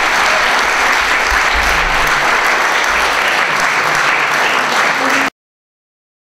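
Audience applauding steadily, then cut off abruptly about five seconds in.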